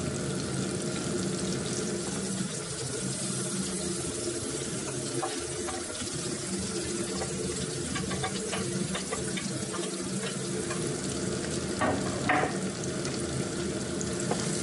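Chopped chili peppers and bacon sizzling in hot oil in a frying pan, a steady hiss. A few clicks of a wooden spatula against the pan come near the end.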